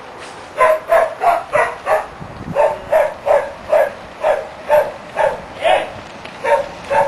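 A dog barking over and over, about two barks a second, starting about half a second in.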